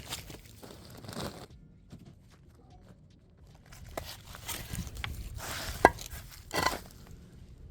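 Rustling, crinkling and tearing of a large mulch bag being cut and pulled open. A sharp click a little before six seconds in is the loudest sound.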